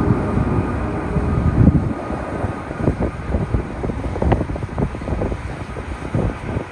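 Jet airliner engines, most likely an Airbus A380's, rumbling loudly with irregular crackles, slowly easing in loudness, with wind on the microphone.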